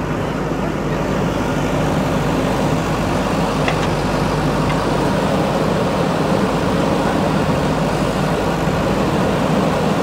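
JCB 3DX backhoe loader's diesel engine running steadily.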